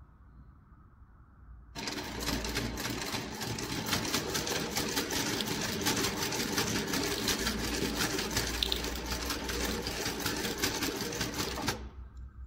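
Juita JT20U-63Z zigzag sewing machine starting up about two seconds in and stitching fabric at speed, a fast, even clatter of needle strokes, then stopping suddenly about a second before the end.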